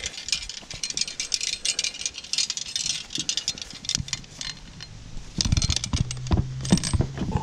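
Loose pieces of scrap metal, copper tubing and AC-unit parts, clattering and rattling as they are handled and moved, with several heavier knocks near the end. A steady low hum sets in about halfway through.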